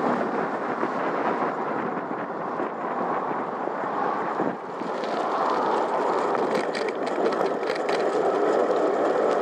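Wind and tyre noise from a moving bicycle: a steady rush, with scattered light ticks and rattles in the second half as it rolls over rough, patched tarmac.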